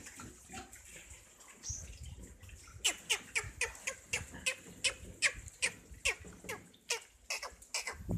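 Piglets squeaking: a rapid run of short, sharp, high calls, each falling steeply in pitch, about two or three a second, starting about three seconds in.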